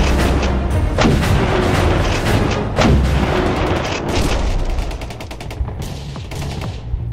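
Cinematic intro soundtrack: music layered with sound-effect gunfire and deep explosion booms. It grows quieter in the last couple of seconds into a run of rapid, lighter shots.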